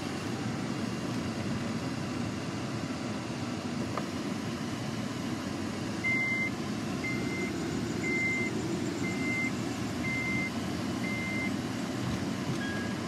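Steady car cabin noise, with the car's electronic warning chime beeping six times, about once a second, from around the middle, then one lower beep near the end.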